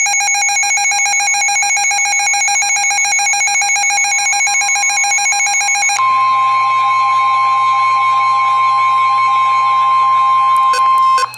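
Weather radio alert: about six seconds of rapidly pulsing electronic alarm beeping, then an abrupt switch to the steady NOAA Weather Radio 1050 Hz warning alarm tone for about five seconds, which ends with a few clicks. The tone signals that a warning broadcast is about to follow.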